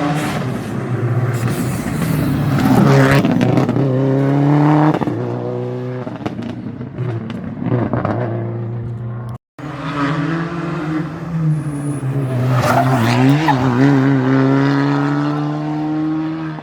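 Rally car engines at full throttle, pitch climbing and dropping as they shift gears. The sound breaks off abruptly about nine seconds in, then a second car is heard at speed.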